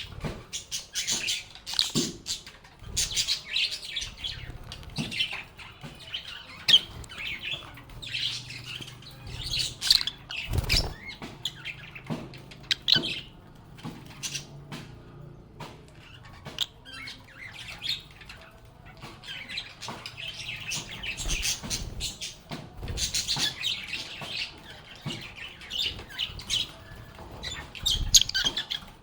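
Pet lovebirds chattering with rapid, high chirps and squeaks in clusters, mixed with scattered sharp clicks, easing into a lull about halfway through before the chatter picks up again.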